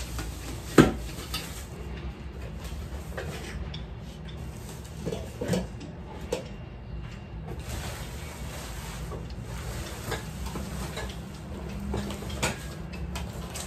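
Kitchenware being unpacked from plastic wrapping: crinkling plastic with scattered clinks and knocks of dishes, the loudest a sharp knock about a second in. A steady low hum runs underneath.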